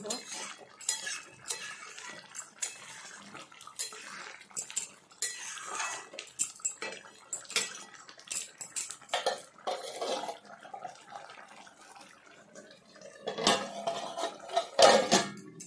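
A metal spoon clinking and scraping against a metal pan of simmering curry, in repeated sharp clinks. Near the end a metal lid is set down on the pan with a louder clatter.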